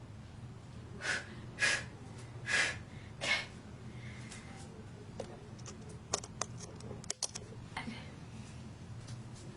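Four quick, noisy breaths or sniffs from a person, followed by a run of small scattered clicks and knocks.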